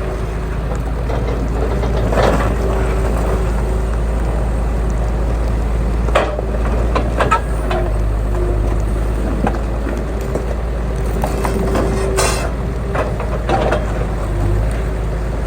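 Engine of a small work machine running steadily, with several sharp knocks and clanks, the loudest about six, seven and twelve seconds in.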